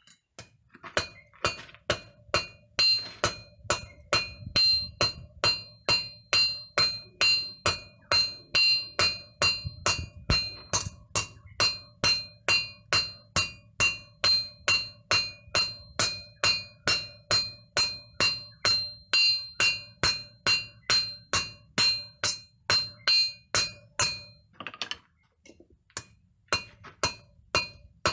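Hand hammer forging hot steel bar on a makeshift anvil of solid round steel: steady blows about two a second, each with a metallic ring. The blows stop for about a second near the end, then start again.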